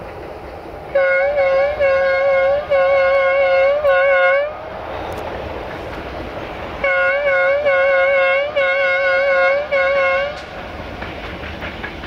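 LDH diesel-hydraulic locomotive's horn sounding a rhythmic sequence of about five blasts, starting about a second in. The same pattern is repeated around seven seconds in. Between and after the runs, the freight train's running noise carries on.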